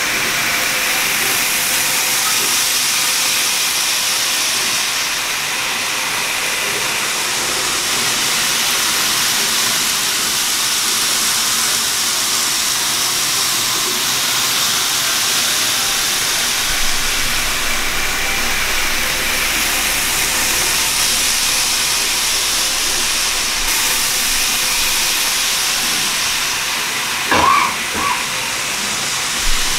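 N-gauge model trains running on plastic-roadbed track, a steady high hiss of wheels and motors. A few short knocks come near the end.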